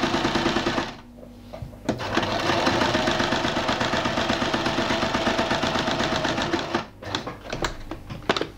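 Electric sewing machine stitching fabric, the needle going up and down in a fast, even rhythm. It stops for about a second near the start, runs again, and stops about seven seconds in, followed by a few sharp clicks.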